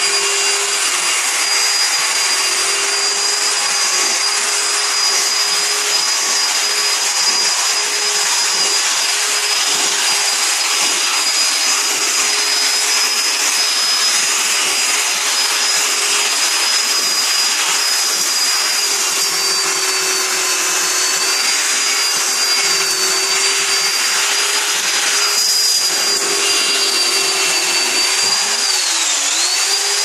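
Handheld electric rotary brush machine running steadily with a constant motor whine, its spinning brush scrubbing fabric upholstery. The motor's pitch dips briefly near the end, then comes back up.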